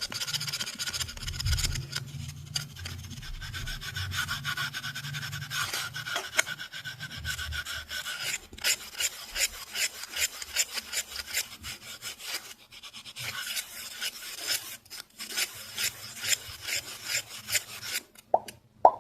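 Fast, close-up scratching on a surface, a rapid run of rasping strokes with a few brief pauses. It stops shortly before the end, where a couple of short, sharp pops follow.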